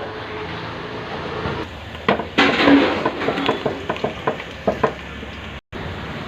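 Chicken sukha frying in a pan with a steady sizzle. From about two seconds in, a utensil scrapes and knocks against the pan as the chicken is stirred. The sound breaks off briefly near the end.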